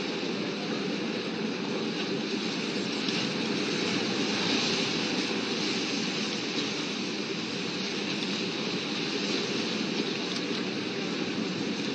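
Steady, even rushing noise of open harbour ambience, with no distinct events standing out.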